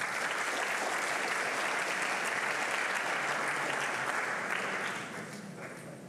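Audience applauding in a theatre, steady for about five seconds, then dying away near the end.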